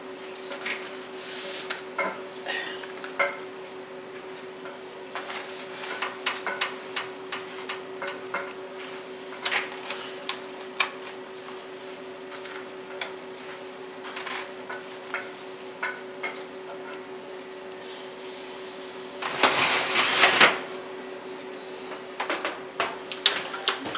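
Aluminium foil pans being set on a wire oven rack, making scattered clicks and knocks, over a steady hum. About three quarters of the way through, a short, louder rush of noise.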